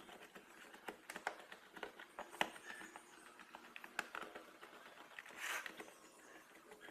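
Hand screwdriver backing screws out of the plastic back cover of an extension board: faint, irregular clicks and scratches, a few sharper clicks, and a short scraping rustle about five and a half seconds in.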